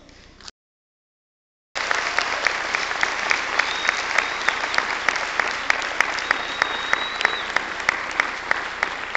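Audience applause in an auditorium at the end of a choral song with piano, starting abruptly after the sound drops out completely for about a second. Loud single claps close to the microphone stand out about three times a second over the dense clapping of the crowd, and a thin high tone sounds twice in the middle.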